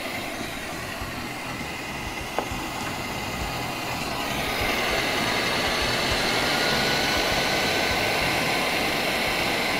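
Electric stand mixer running at a raised speed, its beater whipping cake batter in a stainless steel bowl: a steady motor noise with one sharp click a little over two seconds in, growing louder about four seconds in.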